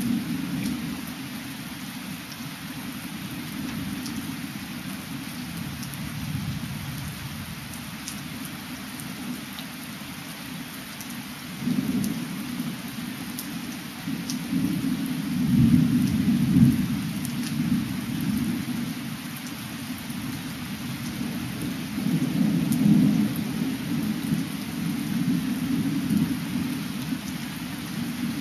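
Distant thunder rolling in long, low rumbles that swell several times, loudest a little past the middle, over a steady hiss of rain with scattered light drop ticks.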